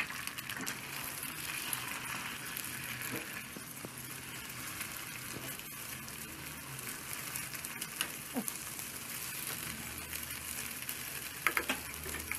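Beaten egg sizzling steadily in hot oil in a frying pan while it is scrambled, with occasional light scrapes and taps of a spatula against the pan.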